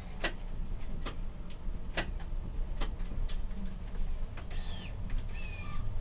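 Streetcar creeping forward over the track with a low rumble: a few sharp clicks from the wheels at irregular intervals, then, from about four and a half seconds in, several short high squeals from the wheels on the rails.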